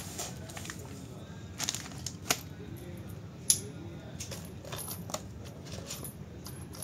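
Scattered light metallic clicks and clinks of small audio connector parts (pins and jack shells) and cable being handled on a workbench, a few sharp ones standing out.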